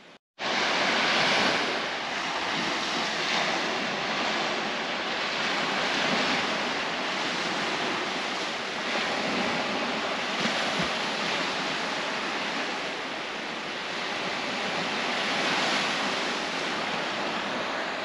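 Small sea waves breaking on a sandy shore: a steady rushing surf that swells and eases every four to five seconds.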